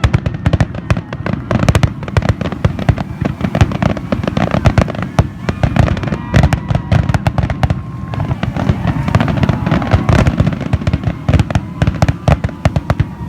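Aerial fireworks going off in a rapid, dense barrage of bangs and crackles, with hardly a gap between shots, as in a show's finale.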